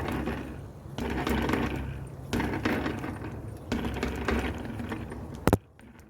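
A 2012 GT Air BMX bike being bounced on its tyres in a bounce test, its parts rattling and clicking with each bounce about every second and a half. A sharp knock comes near the end, then the rattling stops.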